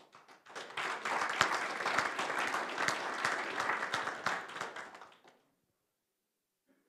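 Audience applauding. It starts about half a second in and dies away about five seconds in.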